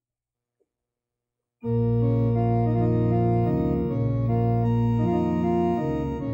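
Near silence, then about one and a half seconds in an organ starts playing sustained chords that change every second or so: the introduction to the Mass's entrance hymn.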